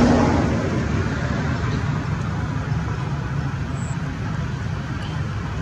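Steady low rumbling background noise, even throughout, with no distinct events.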